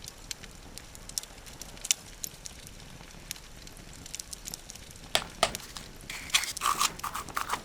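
Jewelry packaging being handled: scattered light taps and clicks, then denser crinkling and rustling from about five seconds in.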